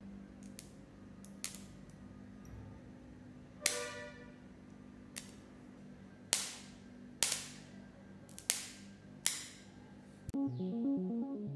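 Sharp electric snaps of a homemade capacitor-bank spot welder discharging through its probe tips into a steel utility-knife blade, one crack at each touch, about eight at irregular intervals a second or so apart. Background music with a keyboard pattern comes in near the end.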